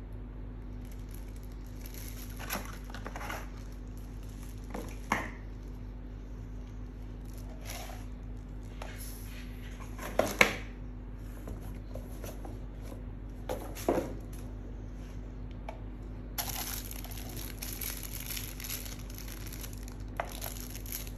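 Thin plastic packaging bags crinkling as they are handled, on and off and then continuously near the end. A few sharp knocks come through, the loudest about ten seconds in. A steady low hum runs underneath.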